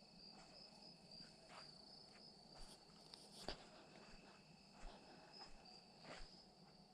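Faint chorus of night insects trilling steadily at a high pitch, with a few soft, scattered crunches of footsteps in the undergrowth.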